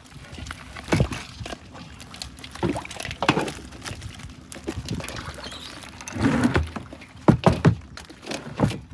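Water splashing and pouring in irregular surges, with sharp knocks about a second in and a cluster of them about seven seconds in.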